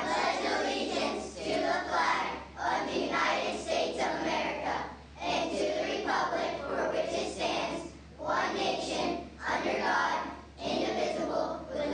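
A group of students reciting the Pledge of Allegiance in unison, phrase by phrase with short pauses between the phrases.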